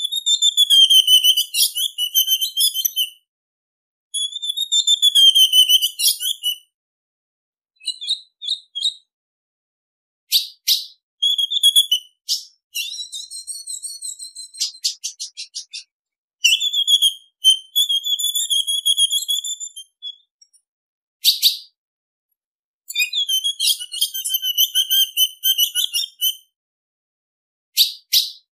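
Female ultramarine grosbeak (azulão) calling: several high warbling phrases of two to three seconds each, with short sharp chips between them and a fast run of ticking notes about halfway through.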